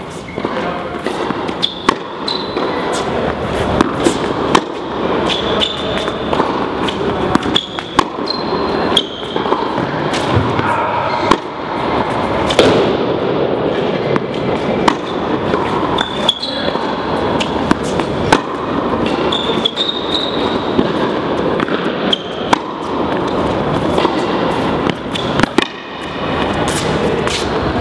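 Tennis balls struck by rackets during a rally on an indoor hard court, a sharp pop about every two to three seconds, with short high squeaks of shoes on the court surface, over steady background noise.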